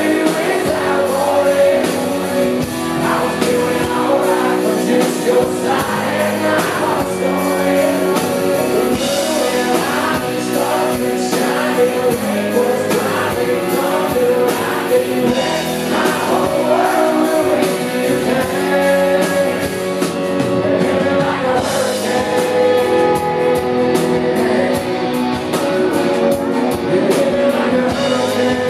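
Live country band playing with a male lead vocal over strummed acoustic guitar, electric guitars and drums. A steady cymbal ticking comes in about two thirds of the way through.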